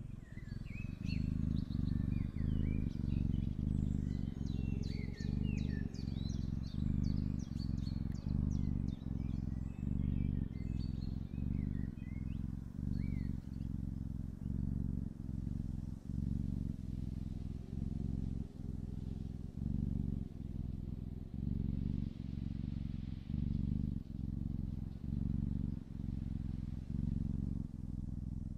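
Tuxedo kitten purring close to the microphone: a low, steady purr that pulses evenly with its breathing. Small birds chirp and trill in the background during the first half.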